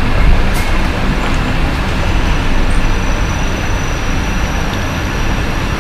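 Steady traffic noise: a constant low rumble of road vehicles with an even hiss, and a faint thin high tone joining about two seconds in.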